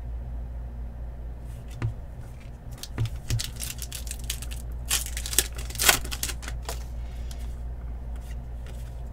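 A foil trading-card pack wrapper being torn open and crinkled by hand. The crackling comes in a dense spell about halfway through, after a few light clicks of cards being handled. A steady low hum runs underneath.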